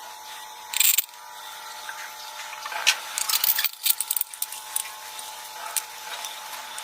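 Power drill spinning a flap-disc sharpening wheel, running steadily with a whine, with short bursts of harsh scraping noise every so often.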